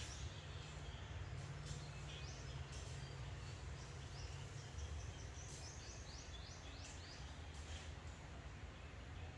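Low steady background hum, with a run of short, high, quick chirps from a bird in the middle.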